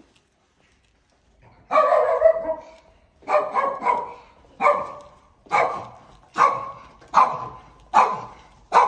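A dog barking over and over, about once a second, starting about one and a half seconds in.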